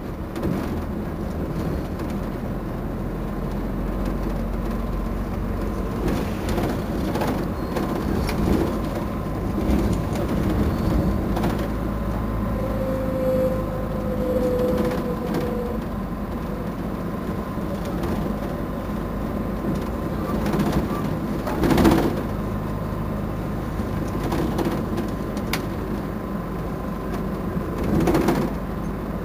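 Otokar Navigo T city bus engine idling steadily while the bus stands at a stop. A couple of louder knocks come in the second half.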